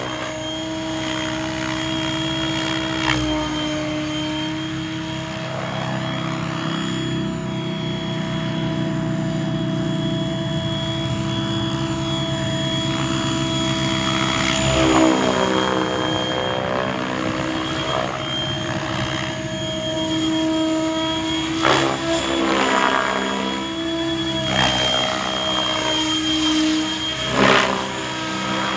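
Electric RC helicopter in flight: a steady whine from the brushless motor and main rotor blades, with swooshing passes that rise and fall in pitch about 15, 22 and 27 seconds in.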